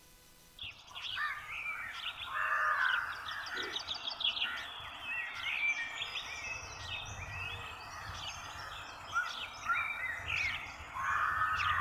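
Several birds chirping and calling at once in a busy chorus that starts about a second in, mixed with a few harsher, rasping calls.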